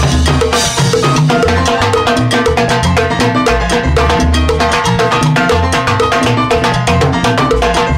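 Live salsa band playing, with a timbales solo on top: fast, dense stick strokes on the timbales over the band's bass and rhythm section.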